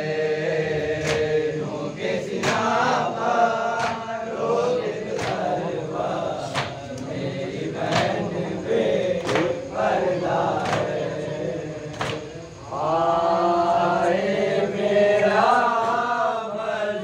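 Group of men chanting a Shia noha (mourning elegy) together into a microphone, with sharp chest-beating slaps (matam) about every second and a half keeping the beat. The voices drop away briefly about twelve seconds in, then the chorus comes back louder.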